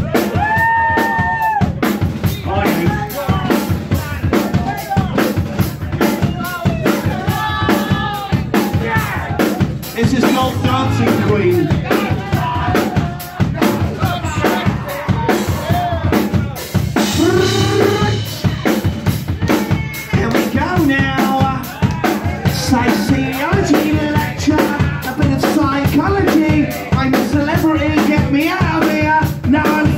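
Live punk rock band playing loudly: a steady drum kit beat with bass drum and snare, under electric guitar and bass guitar. A held high guitar tone rings out about a second in.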